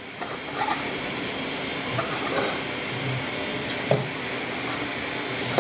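Steady whirring hum of a running 3D printer's fans and motors, rising in level over the first second, with a few light clicks scattered through.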